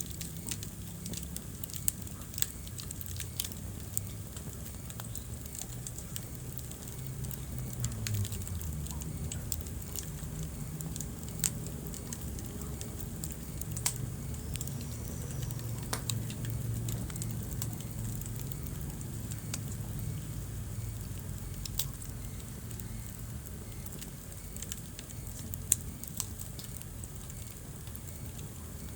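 Wood fire burning in a fireplace: a steady low rumble of flames with scattered sharp crackles and pops throughout, the loudest pop near the end.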